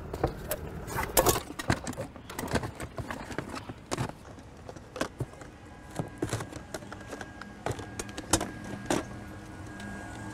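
Irregular light knocks and clicks of small objects being picked up off the ground and handled.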